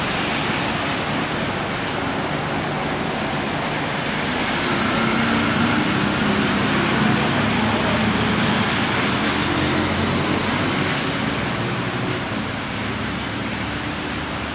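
Heavy rain falling steadily, a constant hiss. Around the middle a motor vehicle passes on the wet road, its engine swelling and then fading under the rain.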